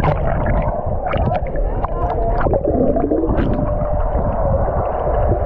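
Wave-pool water churning and sloshing, heard muffled through a GoPro's waterproof housing, with a deep rumble and faint warbling tones.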